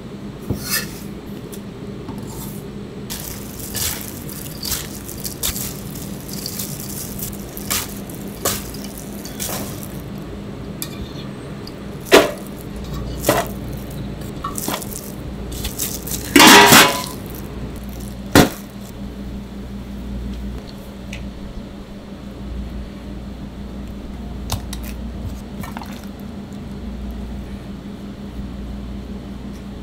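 Kitchen work with stainless-steel bowls and trays: scattered clinks and clatters of metal over a steady low hum, with a longer, louder clatter about seventeen seconds in.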